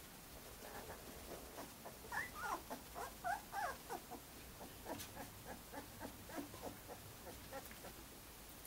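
Young Greater Swiss Mountain Dog puppy whimpering: a run of short, high, wavering whines, loudest from about two seconds in for roughly two seconds, then fainter.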